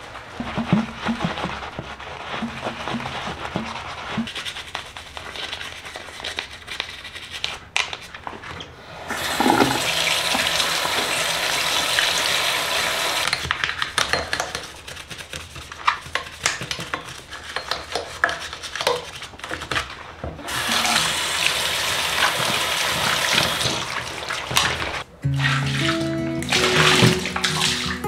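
A sponge and a small brush scrubbing a bathroom vanity counter and the base of a brass sink faucet with many short rubbing strokes. Tap water runs in two stretches of a few seconds each. Soft music with held notes comes in near the end.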